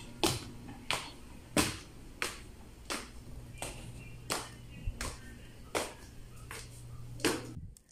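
Background lo-fi beat with a finger-snap percussion sound about every 0.7 seconds over a steady low bass tone; it cuts off suddenly near the end.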